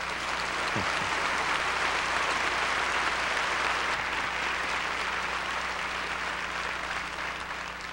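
Large audience applauding, the clapping building up at the start, holding steady, then easing off near the end.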